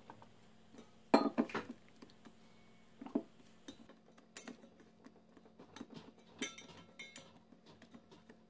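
Stainless steel mixing bowl knocking and clanking on the mat as a ball of bread dough is put into it and pressed down by hand: a series of irregular knocks with a short metallic ring, the loudest a little after a second in.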